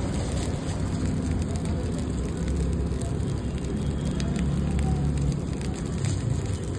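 Fried rice sizzling in a large wok, a steady crackle over a low rumble, with a few faint clicks.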